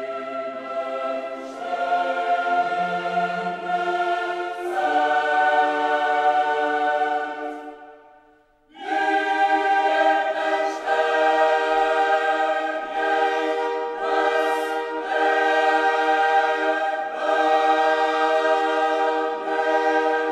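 Choral music: voices singing long held chords that change every few seconds. The music fades out about eight seconds in, then comes back a moment later.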